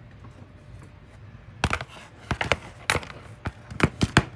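A phone being fitted onto a metal stand: a quick, irregular run of sharp clicks and knocks of handling noise, starting about a second and a half in.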